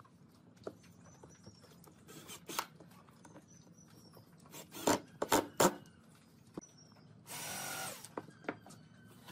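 Cordless drill/driver driving a screw into the pine boxes: a few loud sharp knocks of tool and wood about five seconds in, then the drill motor runs once for under a second. Scattered light clicks of handling the wood.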